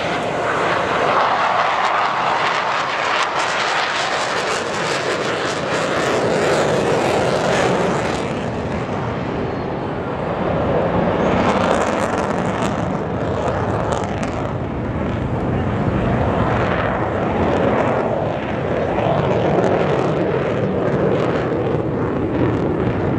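Jet engine noise from an F/A-18 Hornet fighter, a continuous loud rushing rumble that swells and eases every few seconds as the jet manoeuvres overhead.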